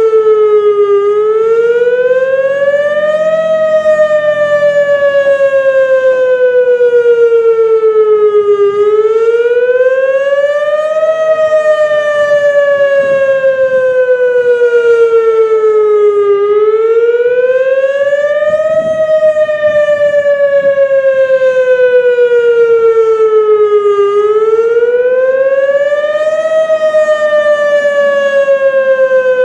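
Whelen WS-281 single-cell outdoor warning siren sounding its wail signal: the pitch climbs quickly for about two and a half seconds, then sinks slowly for about five, the cycle repeating four times.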